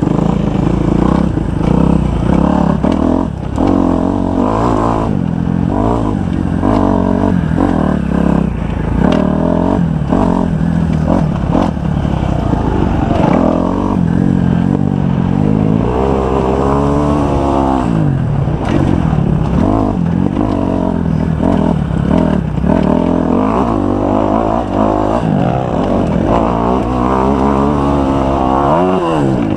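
Single-cylinder motocross bike engine revving hard and easing off over and over as it is ridden round a dirt track, its pitch climbing and dropping with the throttle and gear changes, with one long rise and fall a little past halfway.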